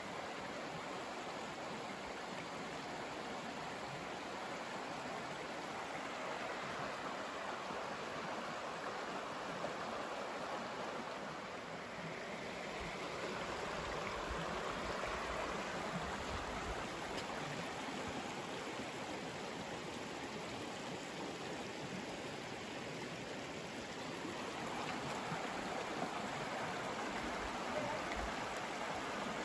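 Shallow rocky creek flowing over stones and small riffles: a steady rush of running water.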